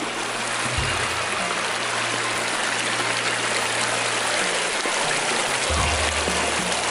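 Shallow mountain creek rushing over rocks, a steady even rush of water, with low sustained background music notes underneath.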